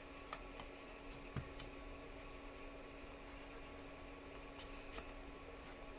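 Soft pastel sticks clicking faintly as one is picked out of its tray, then a pastel stick scratching a swatch onto paper; a few sharp light clicks stand out over a steady low hum.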